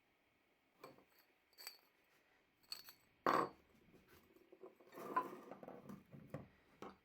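Metal parts and tools clinking and knocking as they are handled, some hits ringing briefly. One louder knock comes near the middle, followed by a busier run of clatter.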